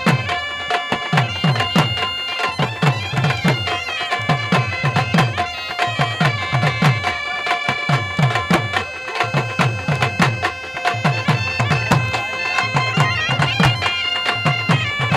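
Folk music on a shrill reed pipe, a tune played over a steady drone, with a drum beating about three strokes a second.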